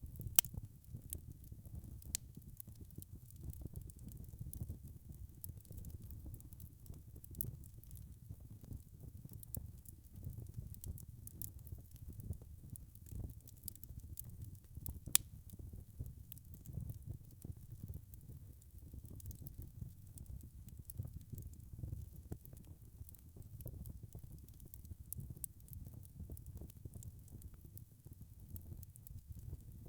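Wood fire burning in a fireplace: a steady low rumble of flames with constant light crackling and scattered sharp pops, the loudest pop about halfway through.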